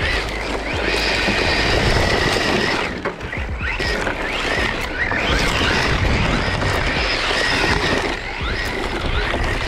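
Electric motor of a 1/8-scale 4WD RC rally car whining up and down in pitch as the throttle is worked, over tyres scrabbling on loose dirt as it slides. Background music plays underneath.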